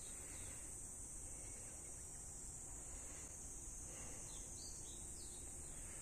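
Faint, steady high-pitched buzz of insects, with a bird giving a few short chirps about four and a half seconds in.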